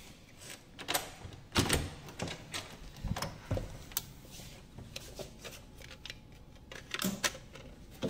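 Irregular sharp clicks and knocks of a hotel door's key-card lock and lever handle as the door is unlatched and pushed open, with a low thump about three and a half seconds in and a few more clicks near the end.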